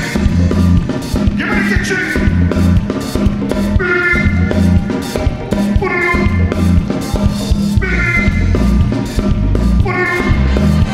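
A live calypso band playing over a steady drum-and-bass beat, with singers and a horn section of trombone and saxophones. A short bright phrase recurs about every two seconds.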